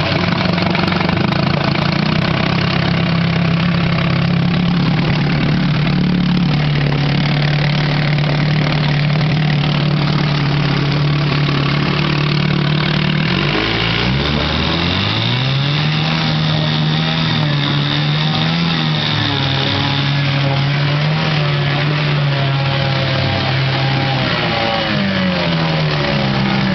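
1990s Evinrude 2.5 hp two-stroke outboard motor running on a test fire just after starting, held at a steady fast speed, then throttled back about halfway through to a lower, slightly wavering idle, and picking up a little near the end. The motor idles down well after a carburettor and fuel tank clean-out.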